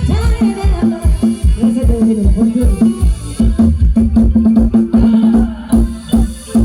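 Live band music, with drums keeping a steady beat under a held low tone and a gliding melody.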